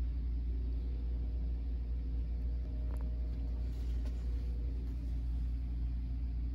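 Steady low mechanical hum from running aquarium equipment on a salmon-egg hatching tank, with a faint tick about three seconds in.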